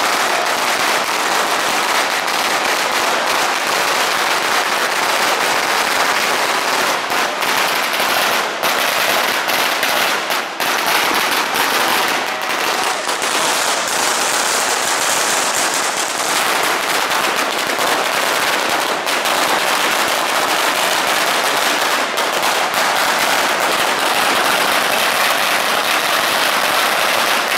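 A continuous barrage of firecrackers and fireworks going off close by. The bangs come so thick that they run together into a dense, unbroken crackle at a steady, high level.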